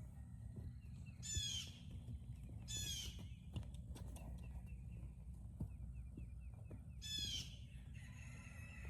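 A bird gives three short, harsh calls, spaced a few seconds apart. Between them comes a quieter run of small, quick chirps, all over a steady low rumble.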